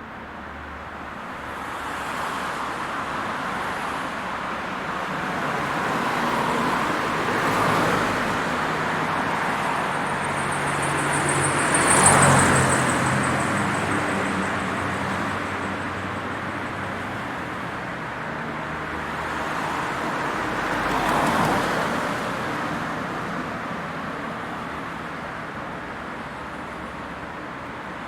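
Road traffic: a steady wash of tyre and engine noise from cars going by, swelling as individual vehicles pass. The loudest pass comes near the middle, with others about a third of the way in and about three-quarters of the way in.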